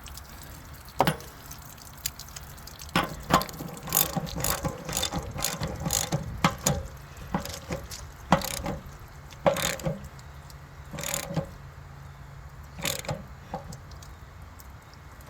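Ratchet wrench clicking in short runs, with metal knocks, as a threaded plug is turned back into the fitting of an RV water heater tank.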